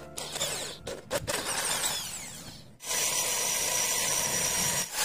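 Electric drill boring a small hole into a metal surf-fishing sinker held in a vise. The sound fades with a falling whine to a near stop a little before the middle, then the drill starts again and runs steadily.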